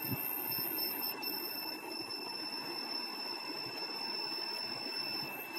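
Arduino earthquake detector's piezo buzzer sounding one steady high-pitched tone. It is the alarm signalling that the accelerometer has registered shaking as an earthquake.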